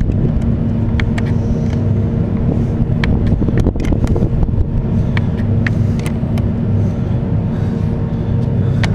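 A steady low machine hum, with scattered light, sharp clicks of a 10 mm wrench working on the forklift's battery cable clamp as it is tightened.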